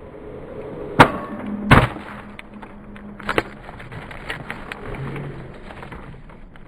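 Two loud sharp cracks or thuds about a second apart near the start, followed by a short steady hum and a smaller knock about three seconds in, with scattered small clicks.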